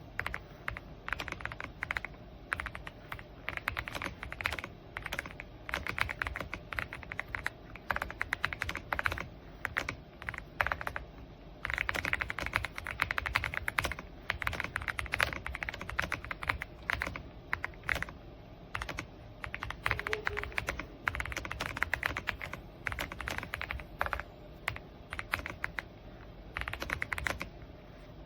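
Typing on an AULA S98 Pro mechanical keyboard: runs of rapid key clicks in bursts, broken by short pauses.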